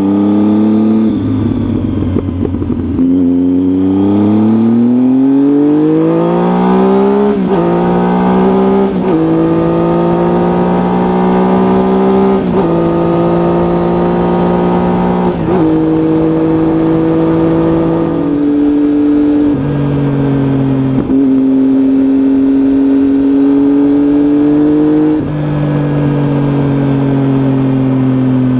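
Triumph Tiger motorcycle engine pulling away and accelerating up through the gears: the engine note climbs, drops sharply at each of several upshifts, then settles into a steady cruise with small rises and dips in speed.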